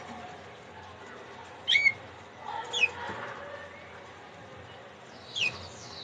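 Caged domestic canaries giving short, sharp chirps that fall in pitch: a quick pair a little under two seconds in, one near three seconds, and another about five seconds in, over a steady hiss.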